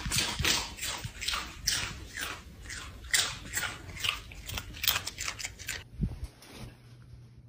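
Dachshund crunching snacks from an opened packet, a quick run of crunches at about three a second that stops about six seconds in.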